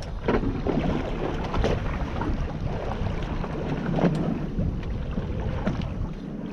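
Steady low rumble aboard a fishing boat on the water, with wind buffeting the microphone and a few short knocks.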